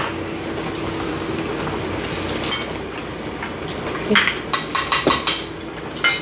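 Metal utensils clinking against the hot pot and dishes: a few scattered clinks, then a quick run of them about two-thirds through, over a steady hiss.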